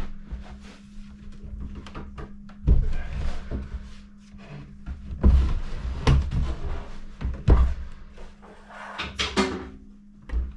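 A heavy unfinished-plywood cabinet being shoved and knocked into place: four heavy wooden thumps and knocks, with scraping near the end as it drags on the floor and the walls.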